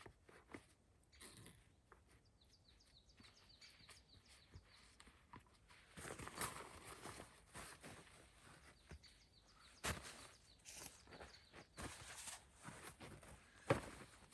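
Quiet outdoor scene of scattered knocks and crunching, with a louder knock near the end. A run of faint, short, high chirps, like a small bird calling, comes a few seconds in.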